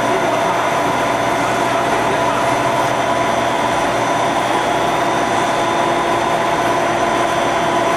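CPP film extrusion line running: a steady machine drone with several constant whining tones, unchanging throughout.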